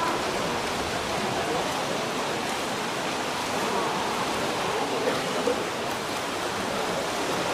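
Steady wash of noise in an indoor swimming-pool hall: swimmers splashing through the water, with faint spectators' voices mixed in.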